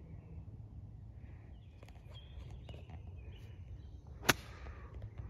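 A golf club striking the ball off the fairway in a full swing: one sharp crack about four seconds in. Faint bird chirps come before it, over a low rumble of wind on the microphone.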